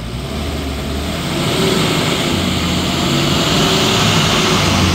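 Dump truck's diesel engine running, getting louder about a second and a half in.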